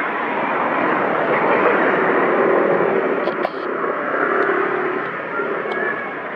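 Steady noise of a passing motor vehicle, swelling and then easing, with a sharp click about three and a half seconds in.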